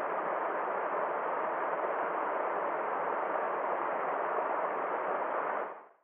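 Steady rushing of a small rocky mountain stream cascading over rocks, fading out near the end.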